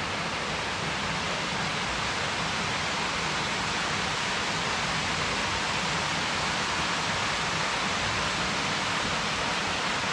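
Small waterfall on a mountain stream rushing steadily into a pool: an even rush of falling water, more hiss than rumble.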